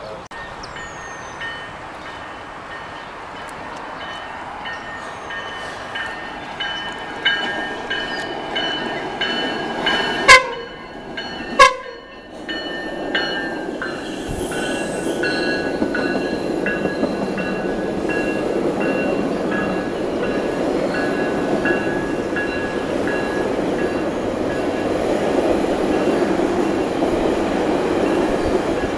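GO Transit bilevel commuter train passing, its horn sounding a chord in a string of short blasts through the first half. Two sharp loud knocks come about ten and twelve seconds in, then the steady rumble of the coaches' wheels on the rails builds and holds as the train runs by.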